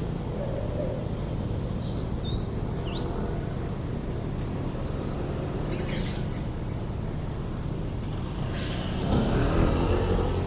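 Outdoor city ambience: a steady low rumble of road traffic, with a few short high chirps about two to three seconds in, swelling louder for a couple of seconds near the end.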